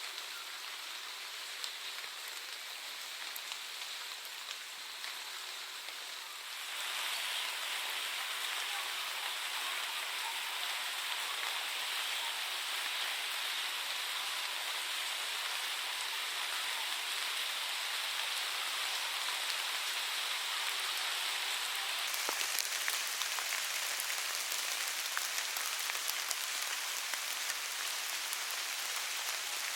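Steady rain falling, an even hiss of many drops with sharper individual drop hits, growing louder about six seconds in.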